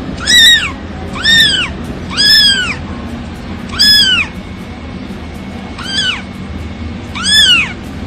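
Grey tabby kitten meowing repeatedly: six high-pitched meows, each rising and then falling in pitch, with a longer pause before the last two.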